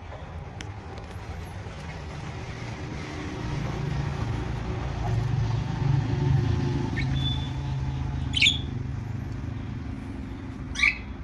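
A low motor rumble swells over several seconds and then eases. Over it a pet budgerigar gives two short, sharp chirps in the second half, with a fainter one just before.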